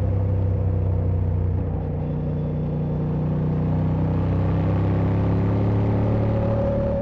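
Honda Transalp XL750's 755 cc parallel-twin engine running at road speed under the rider. About two seconds in the throttle eases and the note drops slightly, then it climbs slowly again as the bike picks up speed.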